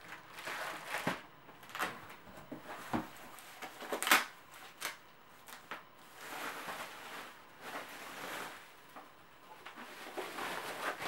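Packaging being handled: a clear plastic bag rustling and crinkling and a cardboard box shifting as a DJ media player is lifted out and unwrapped. Several short knocks of the unit and box are mixed in, the sharpest about four seconds in.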